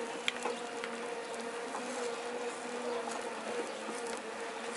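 A steady, slightly wavering buzz, with faint ticks scattered through it.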